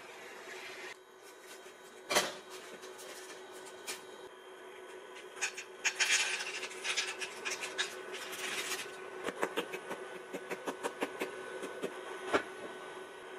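Utensils scraping and clacking in a steel frying pan, then dry penne pasta poured from a plastic bag into a pot of boiling water, followed by a run of quick clicks as salt goes in. A steady low hum runs underneath.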